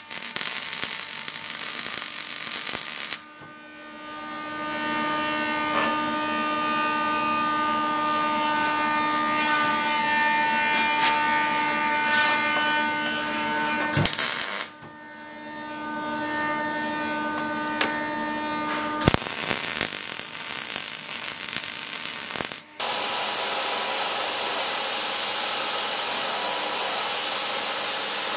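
Belt grinder in use: stretches of hissing abrasive grinding alternate with the machine's steady multi-tone hum, which twice swells up over a second or two. The sound changes abruptly several times, and the last few seconds are even grinding noise.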